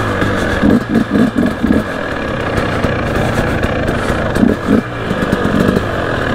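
KTM motocross bike engine running at low revs while riding downhill, with short blips of throttle about a second in and again near the end.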